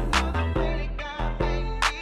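Upbeat children's worship song with a bass line and drum beat.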